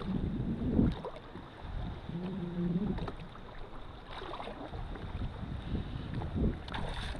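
Water sloshing around a kayak with wind on the microphone, broken by a few light knocks.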